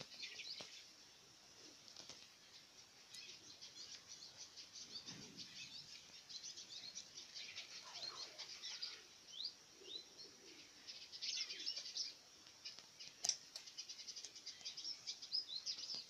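A brood of guinea fowl keets peeping: a quiet, continuous jumble of short high chirps, some sliding downward.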